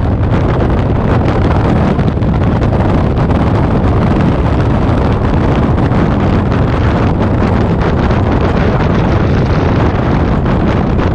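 Steady wind noise blasting the microphone of a camera on a moving motorcycle, with the bike's engine running underneath at a steady cruising speed.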